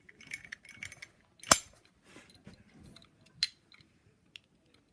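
Sharp metallic clicks from a torch lighter being worked by hand: a loud click about a second and a half in and another about two seconds later, with lighter ticks and handling rustle between them.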